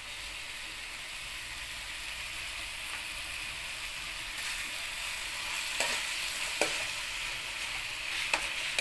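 Stir-fry of pork and vegetables sizzling in a metal wok, a steady frying hiss that grows a little louder about halfway through. Near the end come a few sharp clicks of the stirring spatula against the wok.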